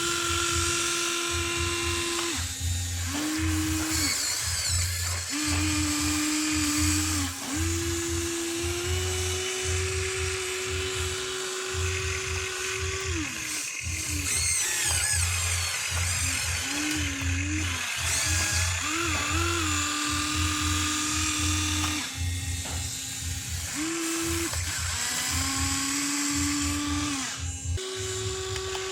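Small electric motors of an RC excavator and truck whining steadily. The pitch steps up and down every few seconds as different functions are run and the load changes.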